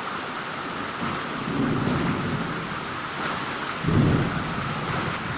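Heavy rain falling steadily, with low rumbles of thunder: a longer one about two seconds in and a louder, shorter one about four seconds in.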